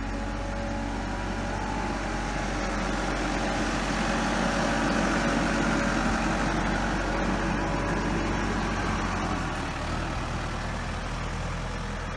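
Diesel engine of a JCB 4CX backhoe loader running, getting louder around the middle and then easing off again.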